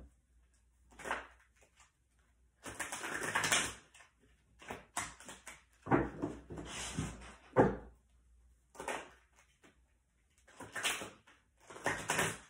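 A tarot deck being shuffled by hand: cards rustling and slapping together in short, uneven bursts with brief pauses between them.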